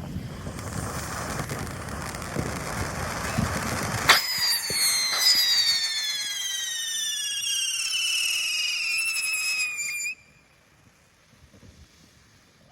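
Consumer firework going off: a hissing spray at first, then about four seconds in a loud whistle starts, several whistling tones sliding slowly down in pitch together for about six seconds before cutting off suddenly.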